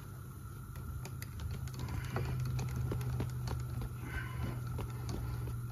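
Power-driven injector-sleeve rolling tool spinning in an injector bore of a Leyland 4/98 or 6/98 cylinder head. It makes a steady low hum with rapid, irregular light clicks, getting a little louder about two seconds in. The rollers are not biting on the sleeve.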